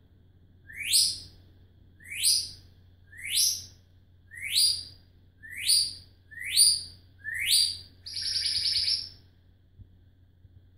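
African grey parrot whistling: seven short rising whistles, each sweeping upward, about a second apart. Then one buzzy, rapidly pulsing call lasting about a second.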